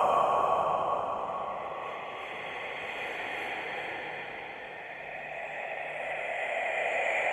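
Scary whispering sound effect: breathy, hissing whispers with no clear words. They fade down through the middle and swell back up near the end.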